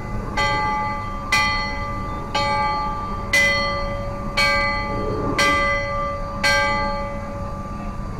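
A large steamboat bell struck seven times, about once a second. Each stroke rings on with several clear tones.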